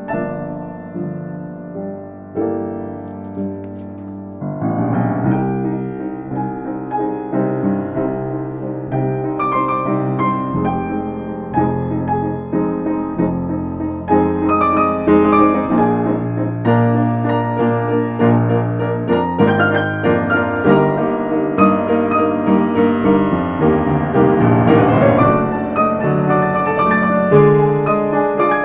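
Piano playing a slow classical-style piece, many notes sounding together. It grows fuller and louder about five seconds in and again about halfway through.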